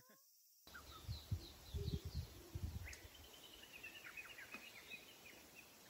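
Faint outdoor ambience with small birds chirping, starting after a moment of silence. A quick run of short chirps comes in the second half, and a few low rumbles are heard near the start.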